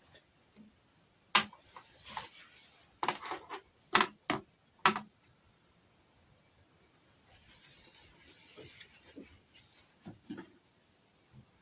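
Small toy pieces and packaging being handled: a series of sharp plastic clicks and taps, with soft rustling in between.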